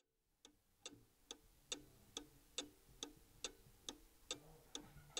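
Cuckoo clock's pendulum movement ticking faintly and evenly, a little over two ticks a second, fading in from silence.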